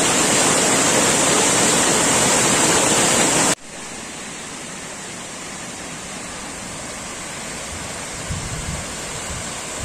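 Waterfall rushing, a steady loud roar of falling water that cuts abruptly about three and a half seconds in to a quieter, similar rush of water.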